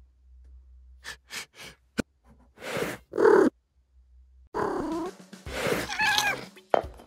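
A cat vocalising at close range: a few soft clicks, then two loud breathy bursts about three seconds in, followed by a short wavering meow-like call near the end.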